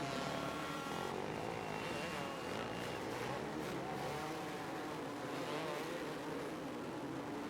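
Several motocross bikes racing, mostly 250cc two-strokes, engines revving and easing off with the pitch rising and falling as they are ridden around the track.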